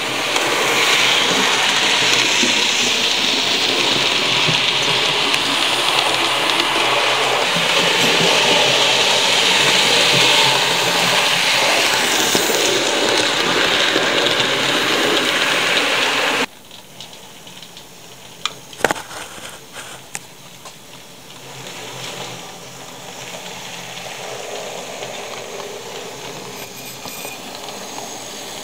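Model train running along the track close to the microphone: a loud, steady rushing hiss that cuts off suddenly a little past halfway, followed by a quieter running rumble with a few sharp clicks.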